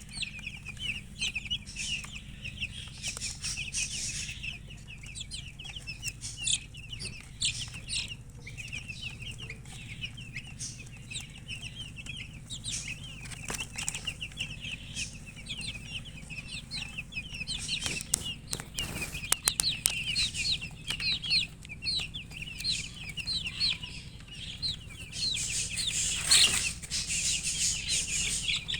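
A group of baby chicks peeping continuously, many short high chirps overlapping, with a few brief bursts of rustling or wing-flapping.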